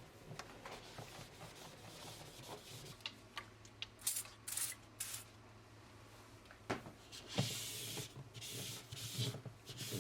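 Hands handling things in a kitchen: light clicks and knocks, with several short stretches of rubbing noise, the longest near the end.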